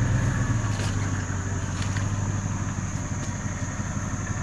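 A four-wheel drive's engine running steadily at low revs, easing off slightly about half a second in.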